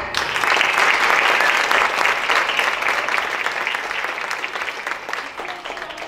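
Audience applauding: the clapping starts suddenly, is loudest over the first few seconds, then slowly dies down.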